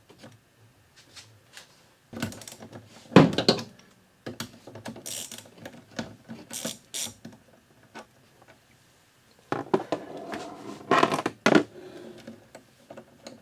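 Ratchet wrench working the nut that holds the wiper linkage onto the windshield wiper motor: two bursts of clicking and metal clinks, the sharpest knock about three seconds in.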